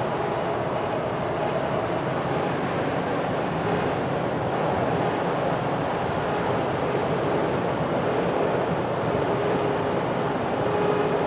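Steady loud wind noise heard inside the cabin of a 2015 Toyota Tacoma at highway speed with all windows up, mixed with road noise. The wind noise is the owner's complaint: it should not be there with the windows closed.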